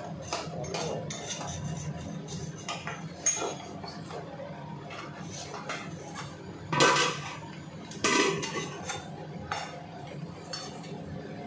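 Metal spatula scraping and clinking against an aluminium kadai as mutton and potato curry is stirred. About seven and eight seconds in come two louder metal clanks as an aluminium lid is handled.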